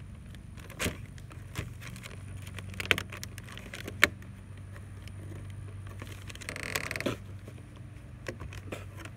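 Plastic lure packaging being handled: a few sharp clicks and taps, and a short crinkling rustle about seven seconds in, over a steady low hum.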